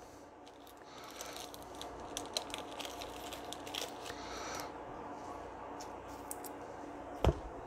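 Faint rustling and light clicks of trading cards and foil packaging being handled off the table, with one soft thump about seven seconds in.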